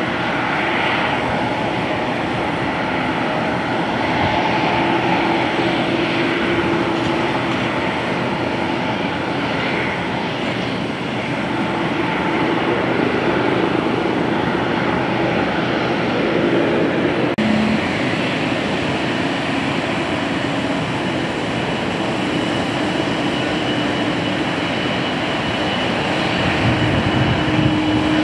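Jet airliner engines running steadily at low power as airliners taxi and roll, with a low steady hum that holds at an even level and shifts slightly at a cut partway through.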